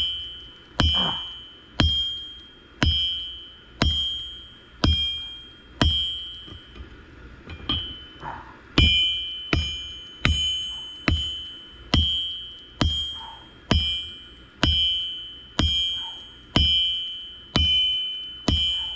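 Cross-peen hammer blows on hot camshaft steel over an anvil, about one a second, each strike ringing with a clear metallic ding that fades before the next, with a short pause about halfway. The steel is being drawn out and stretched longer.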